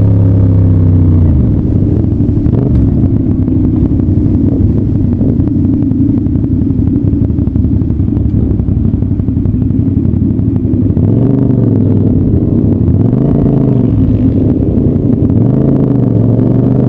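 CFMoto 450SR-S parallel-twin motorcycle engine under way. The revs drop about a second and a half in, run unevenly for a while, then rise and fall several times and climb again near the end.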